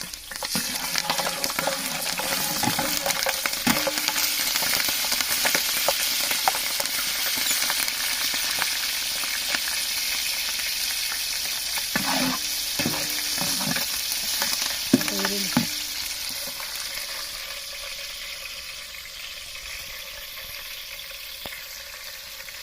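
Green chillies frying in hot oil in a large cooking pot: a loud sizzle that starts just after the beginning and slowly dies down over the last several seconds. Midway, a ladle knocks and scrapes against the pot a few times as it is stirred.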